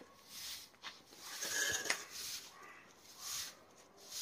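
Long-handled twig broom sweeping over paving slabs: a few short, scratchy strokes.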